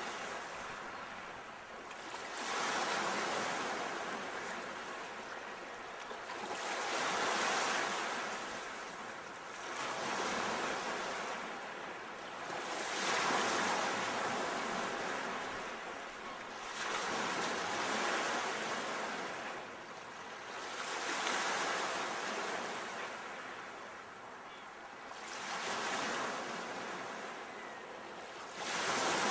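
Sea waves breaking and washing in, each swelling and fading again about every four to five seconds.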